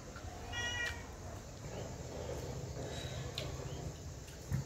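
A pet dog gives a short high-pitched whine about half a second in, followed by a few faint brief squeaks. A low thump comes near the end.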